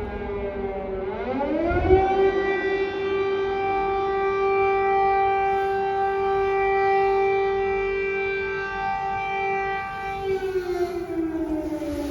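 Air raid siren wailing: its pitch rises about a second in, holds steady, then begins to fall near the end. It warns of a possible drone or missile attack.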